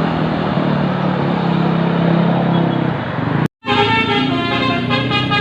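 Road traffic noise with a low vehicle engine drone. About three and a half seconds in, after a brief cut, a bus's telolet multi-tone air horn plays a quick stepping tune.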